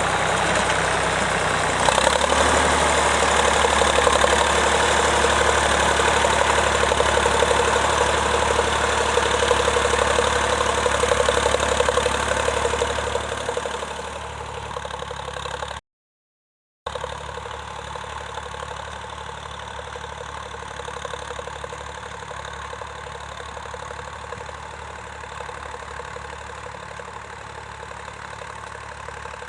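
Vintage tractor engine running steadily, loud and close at first and fading away after about thirteen seconds. After a sudden break it comes back as a quieter, steady engine.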